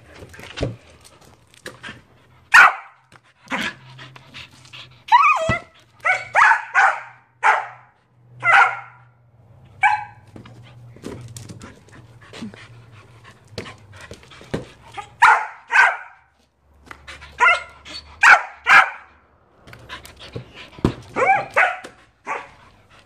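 A border collie barking in short, high-pitched barks, some single and some in quick runs of two or three, with pauses of a second or more between. It is play barking at a balloon.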